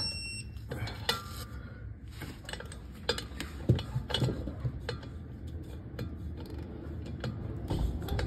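Torque wrench and socket working a driveshaft bolt: irregular metallic clicks and clinks, a few ringing briefly.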